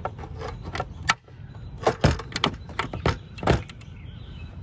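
Needle-nose pliers prying and twisting a knockout out of a Tork TU40 timer's plastic enclosure: a string of irregular sharp clicks and snaps of hard plastic, loudest about two and three and a half seconds in.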